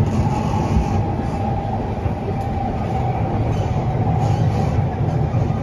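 Steady running noise heard inside a Siemens C651 metro train car: continuous wheel-and-track rumble under a steady higher hum.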